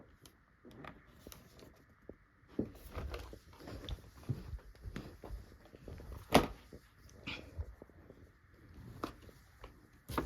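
Scattered handling noises: light knocks, taps and rustles as items and a gift bag are moved about, with one sharp click about six seconds in.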